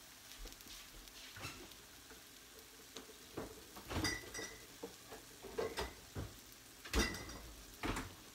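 Sizzling of a smoking-hot pan of freshly baked chicken thighs, with a handful of sharp metal clinks and knocks of utensils against the pan, the loudest about four and seven seconds in.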